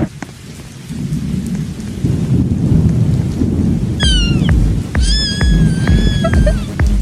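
Low rumbling thunder with rain noise, just after a loud thunderclap. About four seconds in, a meme soundtrack comes in: an even thudding beat with high, drawn-out cat-like meows.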